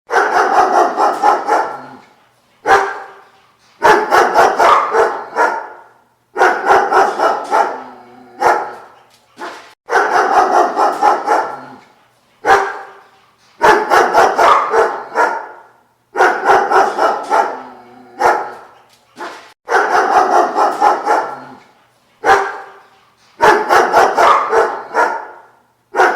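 A dog barking in quick runs of several barks, each run about two seconds long, repeating about every three seconds with a single short bark between some runs.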